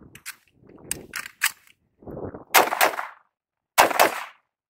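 Rifle fired in two quick double taps, the pairs a little over a second apart, with fainter clicks and knocks before the shots.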